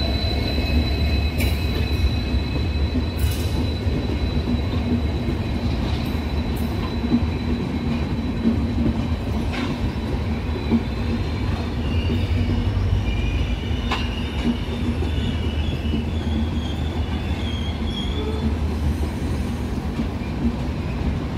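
Passenger coaches of an arriving express train rolling slowly past: a steady rumble of wheels on rail, with a thin, high wheel squeal that wavers in pitch and a few sharp clicks as wheels cross rail joints.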